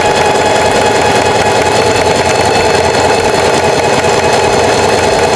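Singer 4423 Heavy Duty sewing machine sewing at a steady speed, its motor giving a steady whine as the needle runs a short, wide zigzag stitch.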